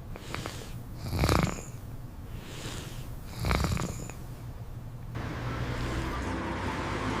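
A sleeping dog snoring, with two slow snores a little over two seconds apart. About five seconds in, a steady hiss of background sound takes over.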